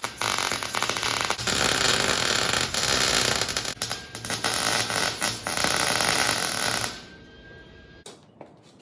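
Stick welding arc crackling and sputtering steadily, then cutting off suddenly about seven seconds in as the arc is broken.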